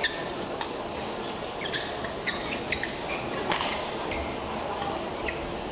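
Badminton play in a large indoor hall: irregular sharp smacks of rackets and shuttlecock and short shoe squeaks on the court, over steady hall background noise.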